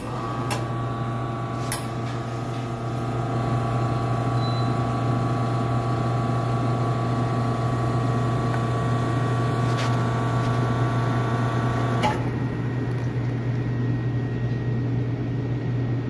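Espresso machine pump running while it pulls a programmed single shot of espresso for a dose calibration. It makes a steady whining hum over a low drone, then cuts off with a click about twelve seconds in.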